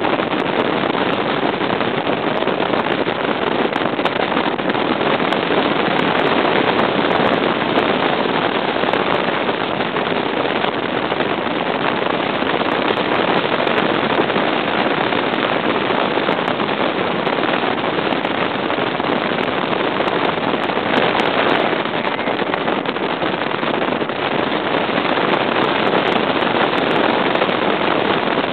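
Bass boat with a Mercury 200 EFI outboard running at speed. The loud, steady rush of wind on the microphone and water along the hull drowns out most of the engine note, and the sound holds even with no letup.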